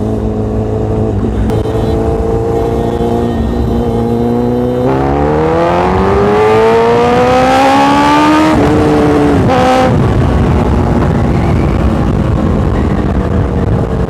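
Honda CBR1000RR superbike's inline-four engine heard over heavy wind rush. It runs steadily, then pulls hard with its pitch climbing for about three seconds, breaks off briefly as the throttle is closed, and falls lower as the bike slows from speed.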